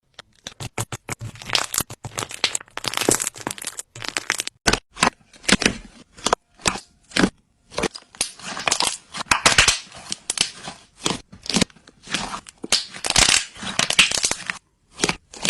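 Slime being squeezed and worked, giving an uneven run of short popping and crackling noises, often several a second, with brief pauses between clusters.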